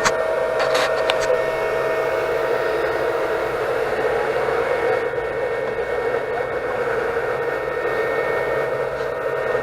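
Anycubic Chiron 3D printer running mid-print: a steady whir from its cooling fans and motion, with a few steady tones held over it. A couple of sharp clicks come in the first second or so.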